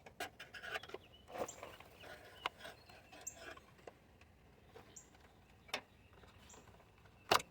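Scattered plastic clicks and rattles of wiring-harness connectors being pried loose with a small flathead screwdriver, with a sharp snap near the end.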